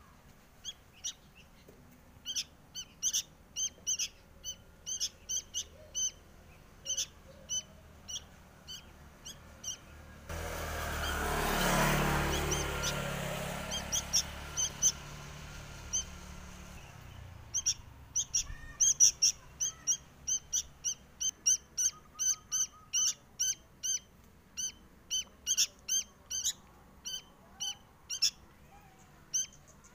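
Sooty-headed bulbul (kutilang) fledgling giving short, high begging calls over and over, a few a second, asking to be fed. About a third of the way in, a rushing noise starts suddenly and fades away over several seconds, and the calls thin out while it lasts.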